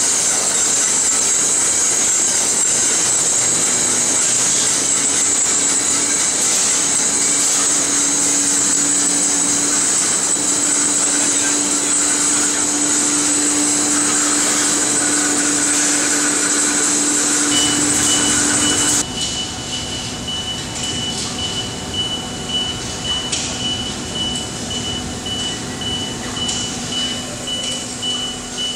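Yung Hua SM6015 steel coil slitting line running, with a steady loud hiss and hum. About two-thirds of the way through this drops sharply to a quieter mechanical rumble. A high pulsing beep starts just before the drop and keeps going.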